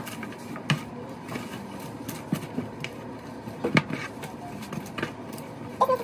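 A serving spoon clinking and scraping against a metal baking pan while food is scooped out: a few scattered short knocks over a steady low background hum.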